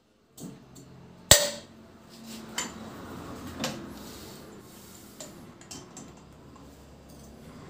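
Metal knocks and clatter as a motorcycle cylinder head and tools are handled on a steel workbench. One sharp clank about a second in is the loudest, followed by a few lighter knocks and clicks.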